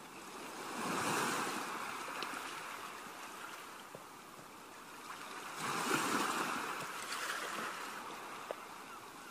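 Two slow swells of rushing, surf-like noise, like waves breaking and washing back. Each builds quickly and fades slowly; the second starts about six seconds in.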